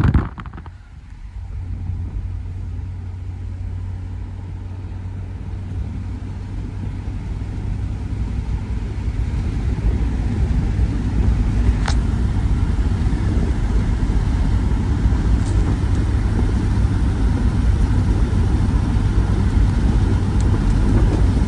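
1993 Mazda Miata's 1.6-litre four-cylinder engine running with a steady low hum that slowly grows louder.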